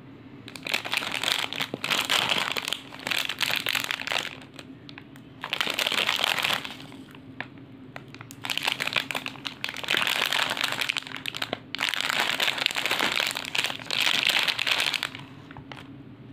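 Plastic snack packets crinkling as they are handled, in about five spells of a second to three seconds each, with short pauses between.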